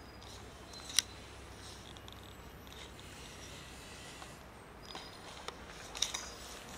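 Cats eating dry kibble from plastic tubs: faint crunching with a few sharp clicks, the loudest about a second in and a short cluster near the end, over a steady low background noise.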